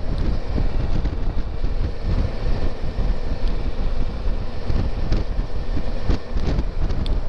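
Motorcycle riding at road speed: wind buffeting the microphone in an uneven rumble, with the bike's engine running underneath.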